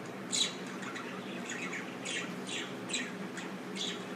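Small cage birds chirping: a run of short, high chirps, each sweeping downward, coming roughly every half second.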